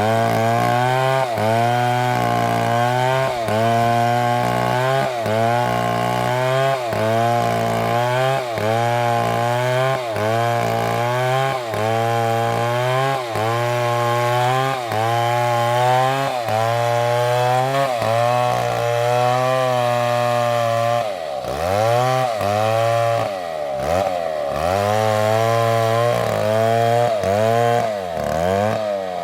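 Large two-stroke chainsaw running at high revs while cutting wood. Its engine pitch dips and recovers about once a second as the chain loads in the cut, with a few deeper drops about three-quarters of the way through.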